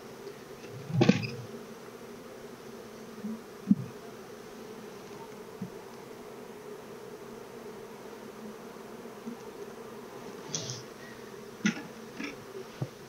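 Steady buzzing hum of a honeybee colony over an open hive. A few short knocks and clicks of wooden hive frames being handled cut through it, the loudest about a second in and a cluster near the end.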